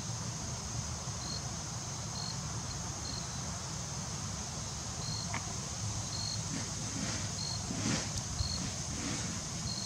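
Steady low wind rumble on the microphone, with a faint, short high chirp repeating about once a second.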